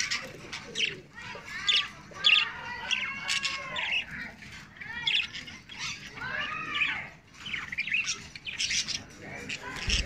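Budgerigars chirping in a continuous run of short, rising-and-falling calls.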